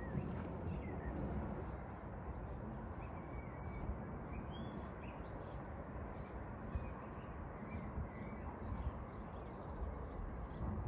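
Small birds chirping, with short high calls repeated at a fairly even pace, over a steady low background rumble of outdoor city ambience.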